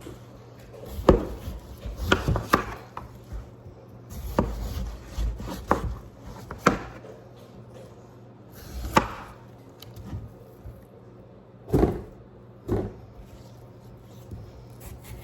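A knife chopping watermelon into pieces, with about a dozen sharp, irregularly spaced knocks.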